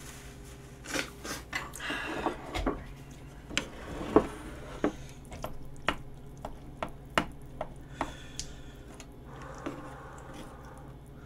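A spoon clicking and scraping against a bowl of gopchang stew, a quick run of sharp taps with the loudest about four seconds in, along with the sounds of eating.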